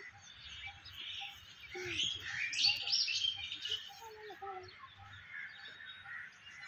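Birds chirping and calling, several at once, with a cluster of loud, sharp chirps about two to three seconds in.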